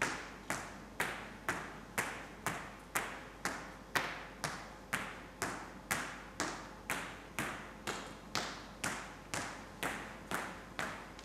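Sharp taps in a steady, evenly spaced rhythm, about two a second, each ringing out briefly as if in a large reverberant room.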